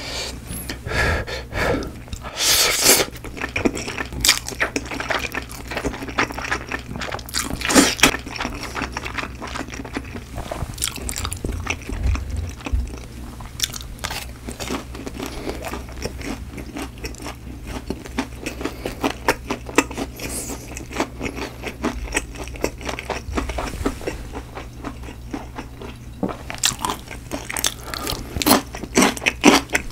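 Close-miked eating: crunchy bites and chewing of seasoned fried chicken and spicy carbonara noodles, a run of sharp crunches and wet mouth clicks that comes thickest near the end.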